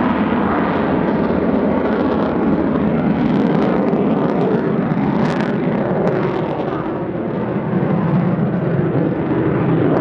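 Twin Klimov RD-33 turbofan engines of a MiG-29 Fulcrum flying a slow, nose-high, high angle-of-attack pass: a loud, steady jet roar that dips slightly about seven seconds in.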